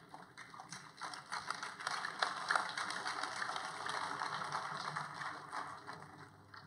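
Congregation applauding: a dense patter of many hands clapping that swells within the first second and dies away near the end.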